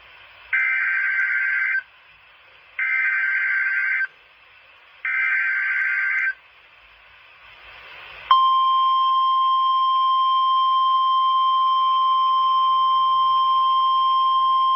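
NOAA Weather Radio emergency alert: three short bursts of warbling SAME digital data header, then a steady, high alarm tone that begins about eight seconds in and holds. Together they signal a warning broadcast, here a severe thunderstorm warning.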